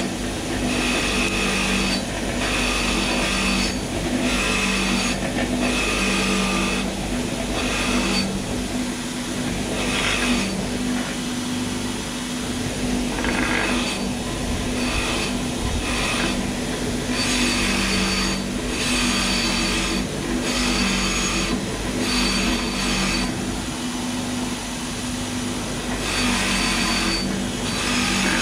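Wet-and-dry abrasive paper rubbed back and forth over a steel stub axle shaft, about one stroke a second, cleaning up the shaft's oil-seal running surface. A steady hum runs underneath.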